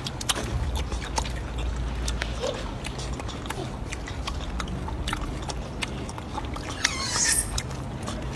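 A monkey's short, high squeal about seven seconds in, amid scattered light clicks over a low steady hum.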